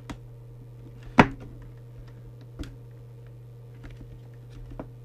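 A few small clicks and taps of a multimeter test probe and its clip being handled against a circuit board, the loudest about a second in, over a steady low hum.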